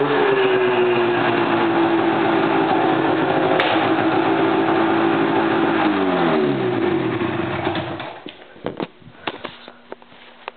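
2008 Ski-Doo Summit X 154 snowmobile's two-stroke engine, fitted with an aftermarket HPS exhaust can, running steadily, then shut off: its pitch falls and it winds down to a stop about eight seconds in. A few sharp clicks and knocks follow.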